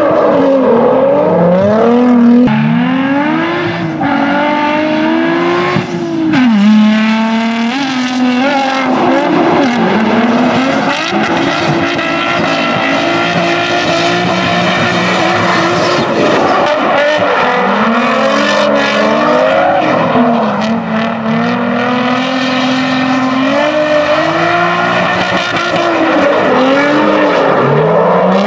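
Two drift cars, a Nissan 350Z and a Nissan 240SX, in a tandem run: their engines rev hard, rising and falling in pitch every second or two, over tyre squeal.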